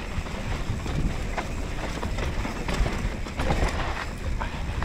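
Downhill mountain bike riding fast over loose dirt and rocks: tyres crunching and skipping over stones, with frequent sharp clicks and rattles from the bike, over a low rumble of wind on the microphone.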